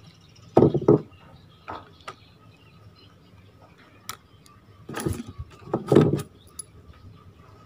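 Fugu Tora 4000 spinning reel being taken apart by hand with a screwdriver: short bursts of clicking and scraping of metal reel parts and tool, a pair about a second in and two more clusters later on.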